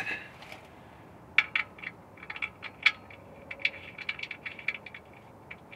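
A string of light, irregular metallic clicks and ticks as the oil pan drain bolt is refitted and tightened by hand and tool. It starts about a second and a half in and stops near the end.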